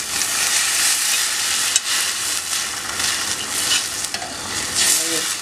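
Broth poured into a hot stainless-steel pan of browned garlic and onion in oil and butter, sizzling steadily as the liquid hits the hot fat, with a metal spoon scraping and clicking against the plate as it pushes the last of the broth off.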